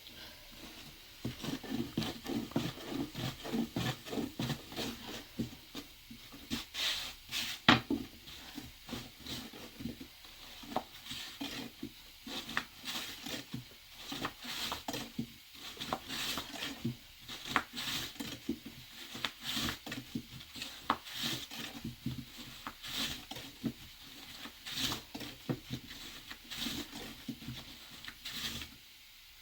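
Kitchen handling sounds: many light knocks, taps and rubs in quick irregular succession, as of dishes, pots and utensils being handled.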